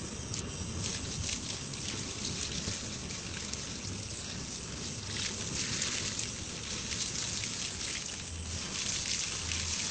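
Water poured from a bucket splashing onto a burning gas cylinder and the ground, over the steady hiss of the gas jet flame at the cylinder valve, which keeps burning through the water.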